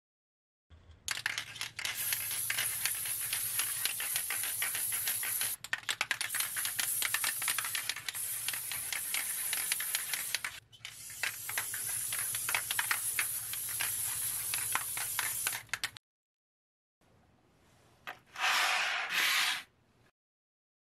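Aerosol can of Dupli-Color tire paint spraying, a loud hiss in three long bursts with two short breaks. After a pause, a brief noise near the end.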